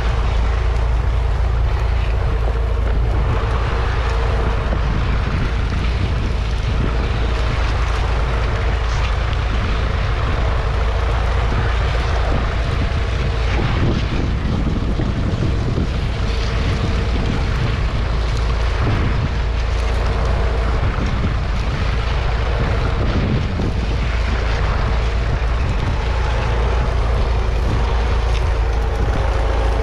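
1944 Fordson Model N's 4.4-litre four-cylinder petrol/TVO engine running steadily under load as the tractor pulls a two-furrow trailed plough, with a deep steady rumble.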